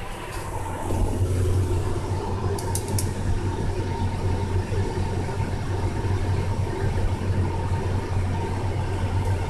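Steady low electrical hum with a fainter high tone from the running water-cell exciter array and its 9XB driver card. Three light clicks come about three seconds in.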